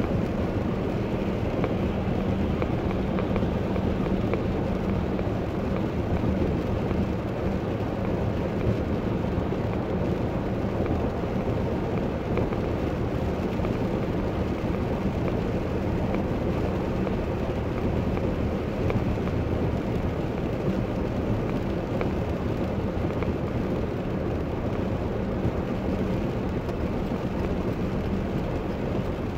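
Steady cabin noise of a car driving on a wet highway in the rain: tyres hissing on the wet road over a constant low drone of engine and road noise, heard from inside the car.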